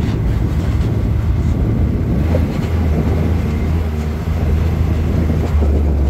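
Off-road vehicle engine running steadily while driving a dirt trail, a low drone with a noisy rumble over it. The drone drops lower near the end.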